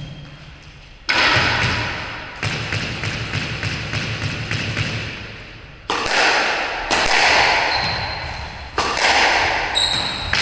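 Squash rally: the ball being struck by racquets and smacking off the court walls, about five sharp hits one to two seconds apart, each echoing through the enclosed court.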